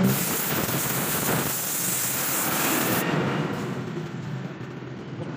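Compressed air hissing from a hand-held hose nozzle blown into the tubes of a radiator core; the hiss cuts back sharply about three seconds in.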